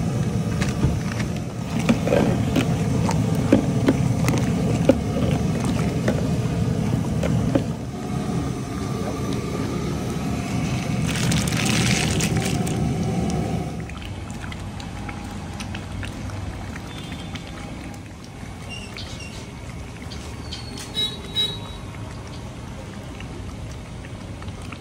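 Commercial cooking at a gas-fired pot: a steady low roar with scattered metal clicks of a ladle against a large aluminium pot, and a hissing pour about 11 seconds in as chopped greens are tipped into the simmering gravy. After about 14 seconds it is quieter, with a few light clinks.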